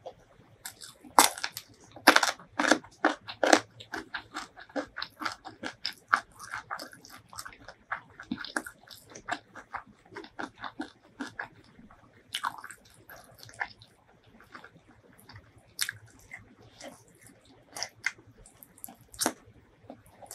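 Close-miked crunching and chewing of a bite of raw cucumber, a rapid run of sharp crisp crunches, loudest in the first few seconds, then softer steady chewing with an occasional louder crunch.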